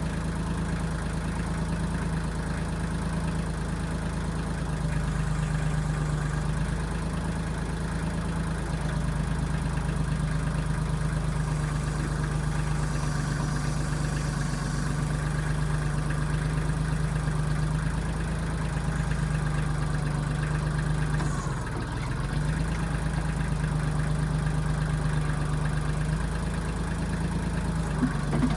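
Kubota backhoe's diesel engine running steadily. Its note shifts slightly a few times and dips briefly about twenty-one seconds in, with a couple of small clicks near the end.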